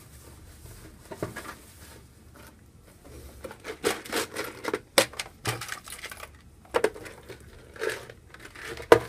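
A run of short clicks, taps and crinkles from small objects being handled on a desk, sparse at first and coming in denser clusters from about three seconds in, with a sharp knock near the end.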